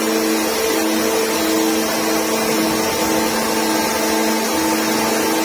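Tunnel drilling jumbo running at the rock face: loud, steady machine noise with a constant hum and a whine that switches between two pitches about every half second.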